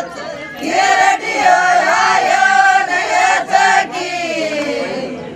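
A group of women singing a Meena ladies' folk song (ladies geet) together in unison, trailing off near the end.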